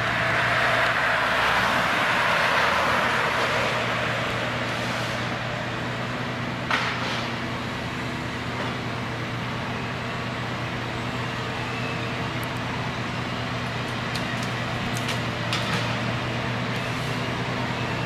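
John Deere 1470E forestry harvester's diesel engine running at a steady pitch while the crane works, with a rushing noise in the first few seconds and a single sharp knock about seven seconds in.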